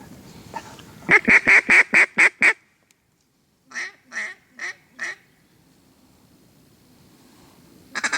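Mallard hen-style quacking: a quick series of six loud, evenly spaced quacks, followed after a short pause by four softer quacks.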